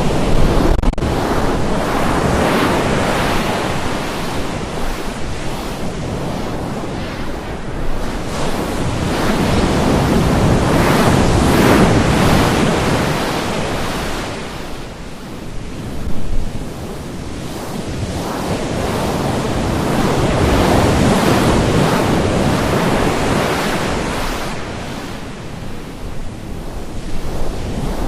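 Loud rushing noise that swells and fades in slow waves every several seconds.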